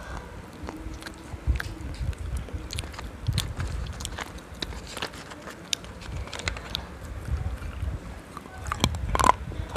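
Close-miked crunching and chewing of a hard black chalky substance, with irregular sharp cracks between the chews and the loudest crunch near the end.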